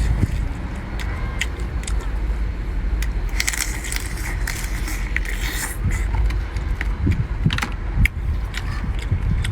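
Swimming crab shell being bitten and cracked: scattered sharp clicks and crunches, with a denser stretch of crackling in the middle, over a steady low rumble.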